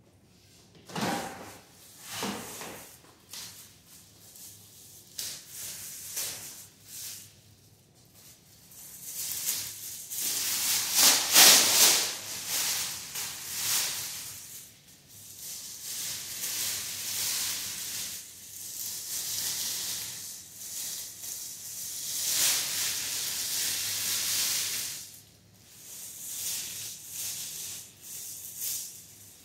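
Disposable blue plastic isolation gown crinkling and rustling in irregular bursts as it is unfolded, shaken out and put on. The loudest rustling comes a little before halfway.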